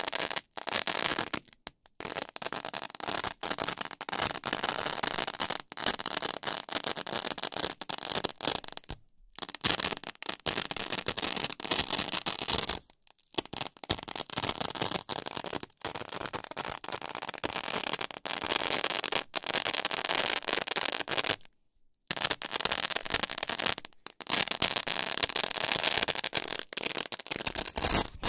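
A roll of Velcro tape rolled across a Velcro-covered surface, the hooks and loops catching and tearing apart in a continuous crackling rip. Several long passes, broken by brief pauses about nine, thirteen and twenty-two seconds in.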